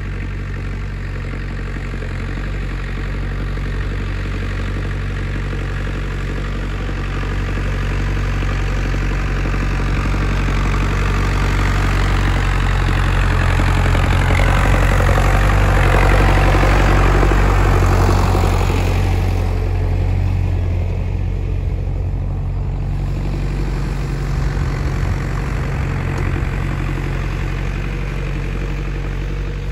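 IHC 844 AS tractor's four-cylinder diesel engine running steadily while it pulls a meadow roller. It grows louder as the tractor approaches and passes close about halfway through, then sounds duller and fainter as it drives away.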